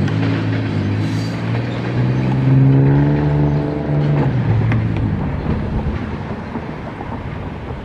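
A nearby engine runs loudly, its note swelling for about four seconds and then fading lower, over the steady rumble of freight cars rolling past.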